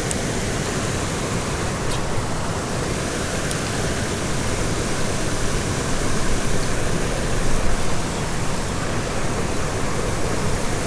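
Steady rushing of flowing creek water, with a few faint ticks in the first few seconds.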